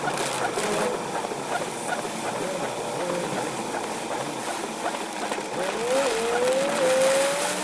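Heavy rain drumming on a moving car's roof and windshield, a steady hiss. About five and a half seconds in, a faint whine rises in pitch.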